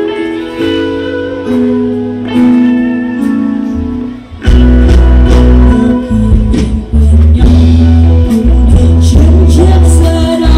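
Loud amplified music with guitar and held notes. A heavy bass and beat come in suddenly about four and a half seconds in, with a singing voice over it later on.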